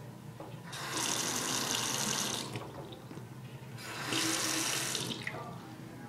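Water from the tap running into a yellow bathroom sink in two short spells, each about a second and a half, as the faucet is turned on and off twice.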